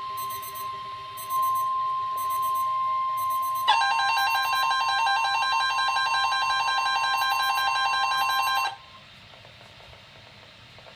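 Weather radio receivers sounding an Emergency Alert System weekly test alert: a steady high alert tone, joined about four seconds in by a louder, rapidly pulsing alarm beep. Both cut off suddenly about nine seconds in, leaving faint static.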